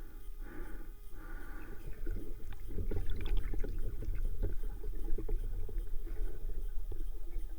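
Muffled water noise from a spearfisher's camera in the water: two soft breath-like swells in the first two seconds, then a low rumble with many scattered clicks and small knocks from about two seconds in.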